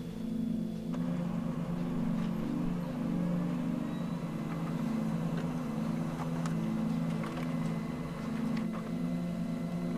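Low droning ambient film-score music: several held low tones swelling and fading in a slow, even pulse, with a few faint clicks over it.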